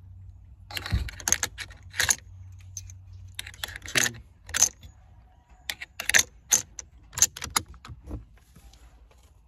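Metal clicking and clinking of rifle cartridges being handled and loaded into a Mosin-Nagant M44, in a run of irregular sharp clicks with pauses between them.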